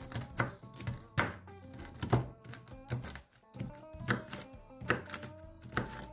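Large chef's knife chopping almonds on a wooden cutting board: sharp knocks of the blade on the board, roughly once a second, over background music.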